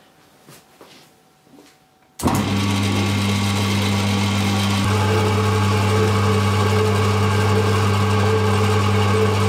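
Quiet with a few faint clicks, then about two seconds in a 1950 Myford ML7 lathe starts running. Its motor hums steadily as the change gears drive the lead screw, and a higher whine joins about halfway through.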